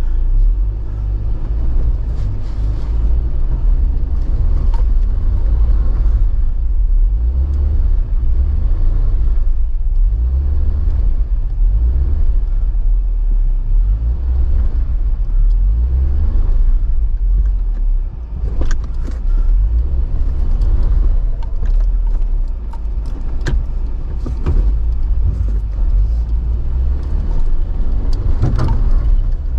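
Jeep Wrangler engine running at low revs, with a steady low rumble, as the Jeep crawls a rocky off-road trail. A few sharp knocks and rattles come through in the second half.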